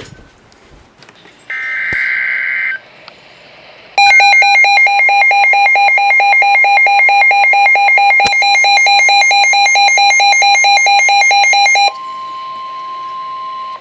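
NOAA Weather Radio alert tones: a burst of SAME digital header data about a second and a half in, then a loud, rapidly pulsing electronic alarm beeping for about eight seconds. The alarm cuts off and leaves the steady 1050 Hz weather-radio warning tone for the last couple of seconds.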